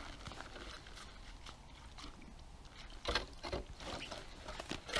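Hand ice auger drilling through lake ice: faint scraping and crunching as the blades bite into the ice, growing louder and more frequent about three seconds in.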